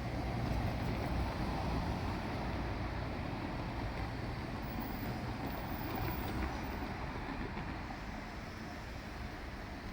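Diesel railcar running, a steady low engine-and-wheel rumble that eases slightly toward the end.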